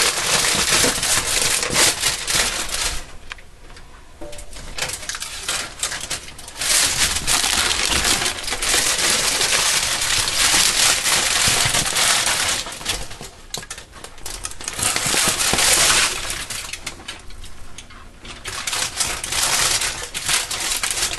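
Aluminum foil crinkling and crackling as it is peeled away from a slab of set candy, stopping and starting with a few quieter pauses.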